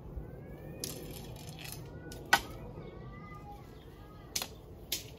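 Shock-corded fiberglass tent pole sections of a Coleman Sundome tent clicking together as they are joined. There are five sharp clicks, the loudest a little over two seconds in.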